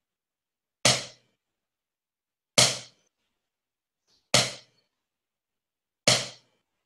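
Drumstick strokes on a drum practice pad: four single, evenly spaced taps, about one every 1.75 seconds, each short and dying away quickly. This is a bass drum part played on the pad.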